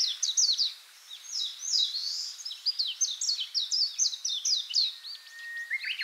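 Birds chirping: a rapid, continuous run of short, high chirps that sweep downward, easing off briefly about a second in, with one held whistled note near the end.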